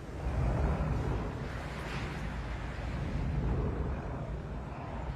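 Low, rumbling roar of strong wind, swelling about half a second in and again around three and a half seconds.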